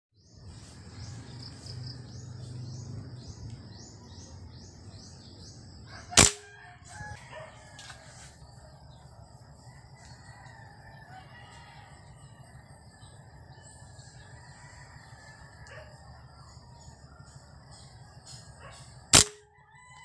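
Two sharp shots from a scoped air rifle, about thirteen seconds apart, each with a brief ringing after the crack. Between them birds chirp, with a quick run of repeated chirps in the first few seconds.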